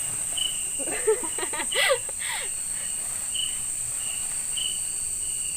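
Night insect chorus in the forest: crickets keep up a steady high-pitched trill, and short chirps come every second or so at irregular gaps. About a second in there is a brief cluster of muffled, voice-like sounds.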